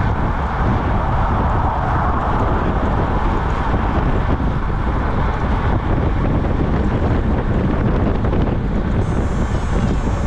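Steady wind buffeting on a bike-mounted camera's microphone while riding fast on a road bike, a dense rushing noise, heaviest in the low end, that never lets up.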